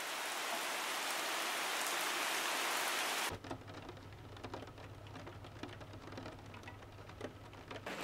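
Steady rain falling on a puddle, dense and even. About three seconds in it cuts suddenly to quieter rain heard through window glass: scattered drops tapping over a low steady hum.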